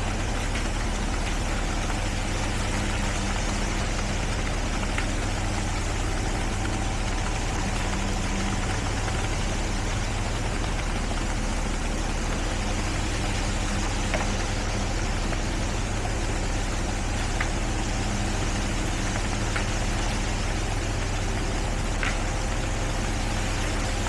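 Heavy diesel engine of construction machinery running steadily at an even speed, with a few faint ticks over it.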